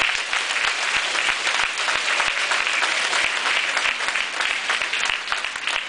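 An audience of schoolchildren applauding: dense, steady clapping that keeps up throughout.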